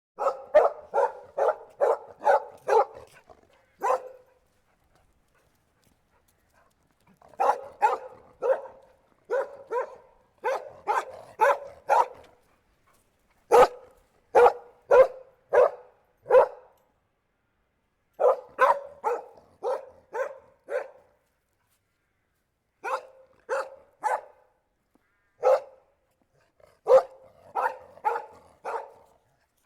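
A collie barking in quick runs of several barks, about three a second, with pauses of one to three seconds between the runs.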